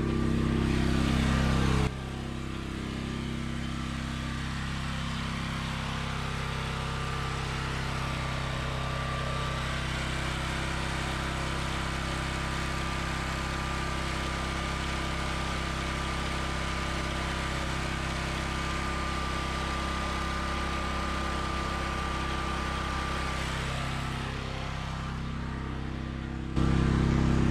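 Harbor Freight Predator 459cc single-cylinder gas engine running steadily during its break-in, loud, with its low-oil sensor disconnected. It gets quieter about two seconds in and louder again near the end.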